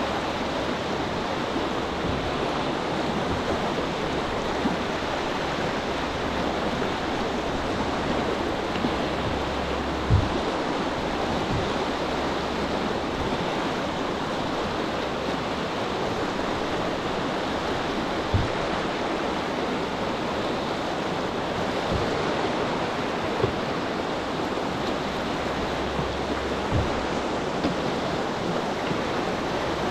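Steady rush of river whitewater surging around a canoe held surfing on a standing wave, with a few brief low thumps through it, the loudest about ten seconds in.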